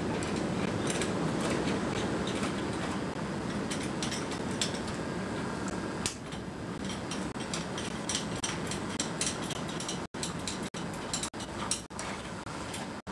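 Light metallic clicks and clinks of small parts and hand tools being handled at a workbench, over a steady background noise; the sound briefly cuts out a few times near the end.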